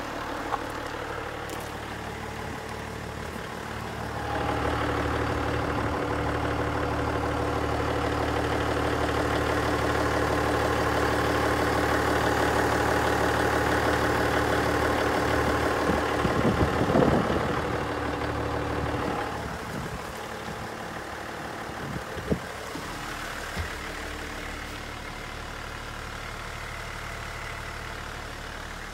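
Hino Liesse II minibus's 1HD straight-six diesel idling steadily, louder for a stretch in the middle, with a few brief knocks.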